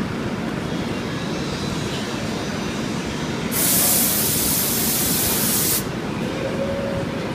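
Steady roar of a glassworks' gas-fired furnaces and glory holes. About halfway through, a loud, sharp hiss lasts a couple of seconds and cuts off suddenly.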